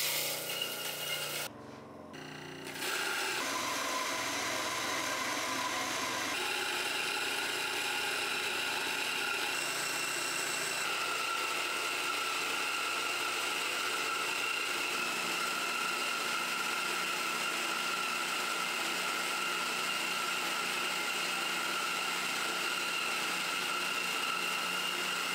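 Coffee beans briefly poured into a grinder's hopper, then the Szpilman MC-360 electric coffee grinder's motor running at a steady speed with a constant whine, grinding the beans.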